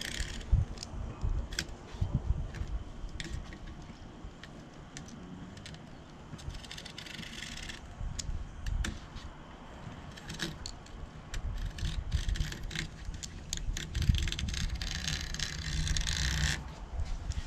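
Hands working new screen and spline into a door screen frame: scattered clicks and rattles, with two stretches of scraping, the first about six seconds in and the second near the end.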